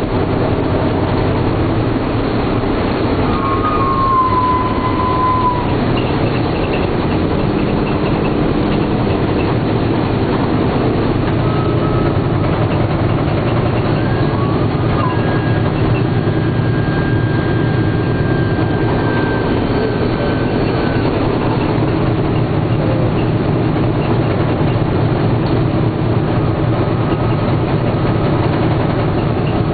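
The B-17's four Wright R-1820 Cyclone radial engines running steadily at low power on the ground, heard from inside the fuselage as a loud, even drone.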